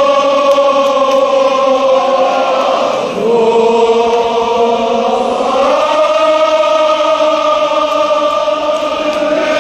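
Men's voices chanting a Kashmiri marsiya (mourning elegy) together in unison, in long held notes. The pitch drops about three seconds in and rises back up around the six-second mark.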